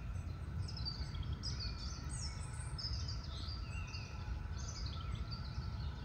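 Songbirds chirping and singing in woodland: many short, high calls overlapping one another, over a steady low rumble.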